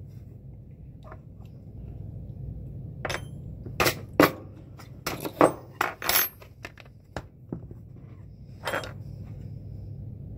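Metal hand tools clinking against each other and against the workbench as they are picked up and set down. There is a cluster of sharp clinks in the middle and one more near the end, over a low steady hum.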